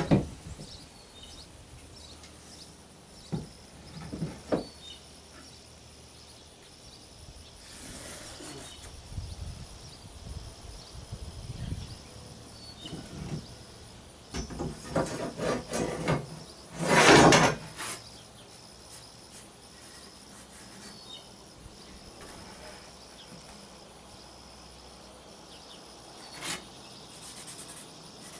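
Cardboard template being handled and fitted against plywood framing and the fiberglass hull: scattered knocks and rubs, with a run of scraping a little past the middle that ends in a louder rasp of about a second.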